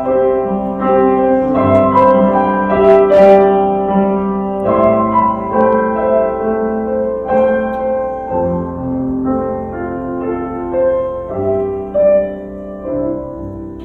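Piano playing slow, held chords with a melody line on top, continuing on after the singing has stopped.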